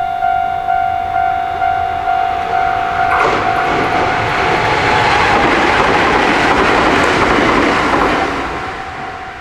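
Japanese level-crossing warning bell dinging in a steady rhythm about every 0.7 s, then a Nankai Kōya Line electric train rushing through the crossing from about three seconds in, its wheel-and-rail noise drowning the bell before fading near the end.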